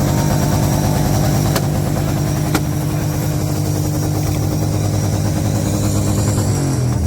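Motorcycle engine revved and held at high revs through a loud exhaust in a loudest-exhaust contest. The revs drop briefly near the end and pick back up. Two sharp clicks come about a second and a half in and a second later.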